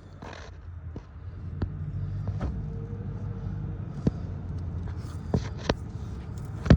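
A steady low rumble that grows louder about a second and a half in, with a few light clicks and taps over it.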